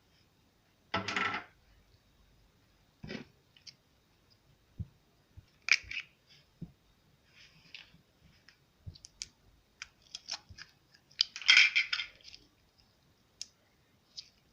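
Slime being pressed and kneaded by hand, giving scattered small clicks and pops. Two louder short rattling bursts come about a second in and again near the end.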